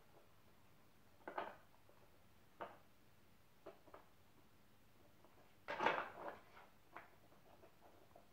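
Wooden Dog Twister treat puzzle being worked by a dog: scattered short knocks and scrapes as its pieces are pushed and turned, with the longest and loudest cluster about six seconds in.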